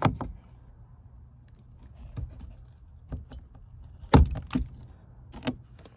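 A razor blade cutting notches into the plastic rim of a Smart Fortwo door panel's speaker opening: a handful of short, sharp clicks and snaps, the loudest about four seconds in.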